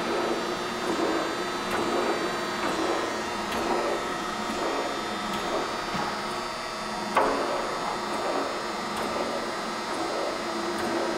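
Chevalier FSG-1228AD automatic surface grinder running its automatic cycle: the spindle and power feeds hum steadily while the table traverses, with noise swelling and easing every second or so. A single sharp click comes about seven seconds in.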